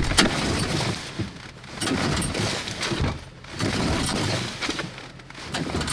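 Small outboard motor being pull-started from cold with the choke out: the recoil starter cord is yanked repeatedly in rasping surges and the engine turns over without catching yet.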